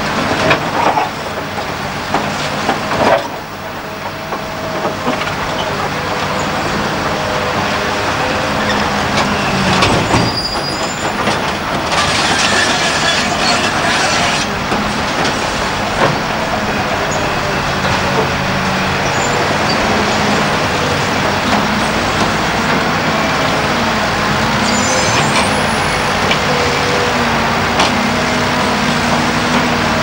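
Caterpillar 235 hydraulic excavator's diesel engine running under load as its steel bucket digs and scrapes through broken rock. Sharp knocks of rock on steel come a few times, with a longer clatter of tumbling rubble about twelve seconds in.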